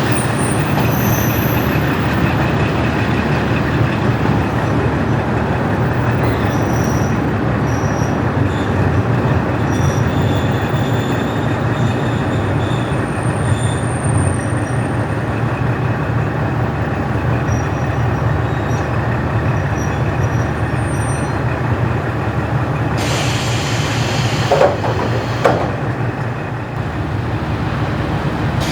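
KiHa 40-series diesel railcar with its original DMF15HSA diesel engine running along the line, a steady rumble of engine and wheels. A little before the end a hiss rises, with two short squeals.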